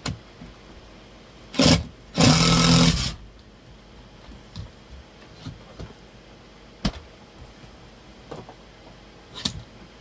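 Power drill driving a screw into the wall for a mount bracket: a brief blip, then about a second of steady running. A few light clicks and knocks follow.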